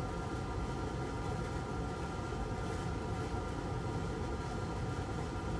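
Steady mechanical hum of a running fan, with a low rumble and a few steady tones.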